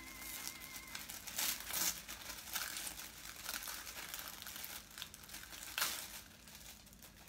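Tissue paper rustling and crinkling as hands unfold it inside a gift box, in a series of uneven bursts, the loudest about one and a half seconds in and again near six seconds.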